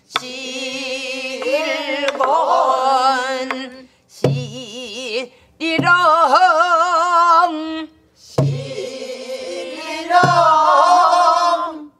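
Pansori singing in the slow jinyangjo rhythm: long, wavering held notes sung in phrases, taken up in turn by the woman leading and by the class. A few deep strokes of the buk barrel drum mark the beats.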